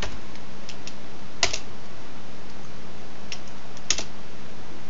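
A few separate keystrokes on a computer keyboard, the two loudest about a second and a half in and near four seconds, over a steady hiss and a low hum.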